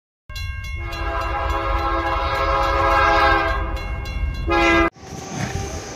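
Train whistle blowing a long, steady, chord-like blast over a low rumble, ending in a short louder blast that cuts off suddenly about five seconds in. Even platform noise follows.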